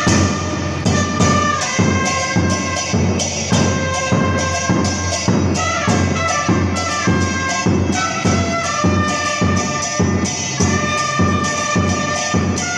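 Two trumpets playing a cumbia melody in long held notes over the steady beat of a bombo murguero, the murga bass drum.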